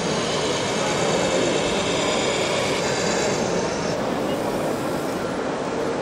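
Steady din of voices mixed with the running of radio-controlled model trucks, a constant blend of chatter and motor noise.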